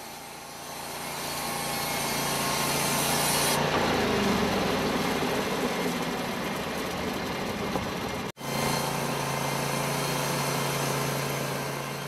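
Norwood portable band sawmill running, its engine-driven band blade cutting lengthwise through a squared log, a steady mechanical hum and rasp that builds over the first few seconds. The sound cuts out for an instant about two-thirds through, then the sawing carries on steadily.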